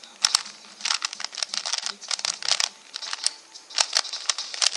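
Plastic 3x3 Rubik's cube turned quickly by hand: quick, irregular runs of sharp plastic clicks and clacks as its layers snap round.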